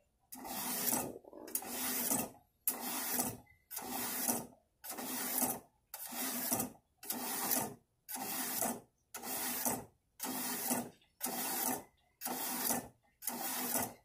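Steel kitchen-knife blade drawn again and again through the diamond rods of a Warthog V-Sharp Classic II sharpener set at 20 degrees, a rasping scrape on each pull. About sixteen strokes come at a little over one a second, each with a short pause between.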